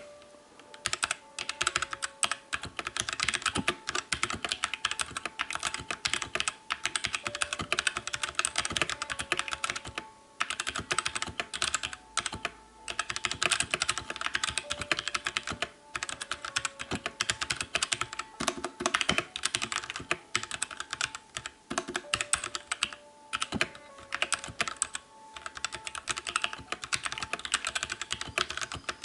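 Fast, continuous typing on a Royal Kludge RK71 mechanical keyboard with its stock switches: a dense stream of key clacks broken by a few brief pauses.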